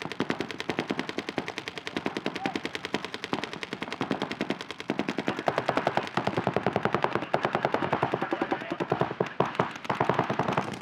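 Paintball markers firing in rapid, continuous streams, many shots a second from several guns overlapping, getting louder about halfway through.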